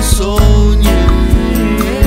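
Studio recording of a bossa nova song played by a band: a steady electric bass and drum kit keep the rhythm under a gliding melodic line, with nylon-string guitar, keyboard and hand percussion in the arrangement.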